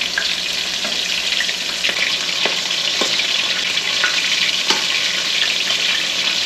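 Breaded catfish nuggets frying in a skillet of hot oil: a steady, dense sizzle, with a few sharp metallic clicks of tongs in the pan.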